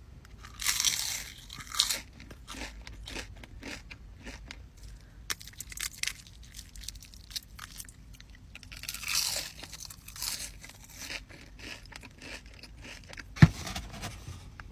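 A person biting into crunchy food and chewing it. There are two big crunching bites, about a second in and about nine seconds in, with smaller crackly chewing sounds between them. A single sharp knock comes near the end.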